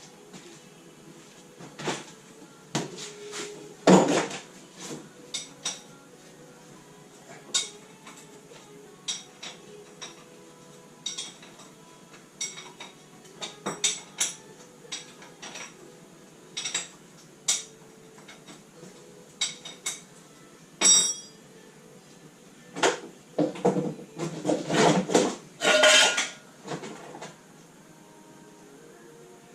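Hand tools and metal parts clinking and clanking in irregular knocks while a classic Mini engine is being worked on. There is a loud knock about four seconds in, one ringing metallic clink later, and a run of heavier clattering near the end.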